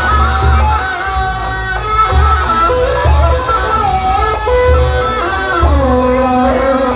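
Sundanese benjang music playing loudly: a melody with sliding, wavering pitches over deep, repeated drum beats.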